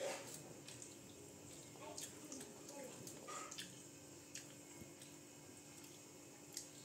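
Quiet room with a faint steady hum, a few faint small clicks and taps, and a brief soft child's vocal sound about two to three seconds in.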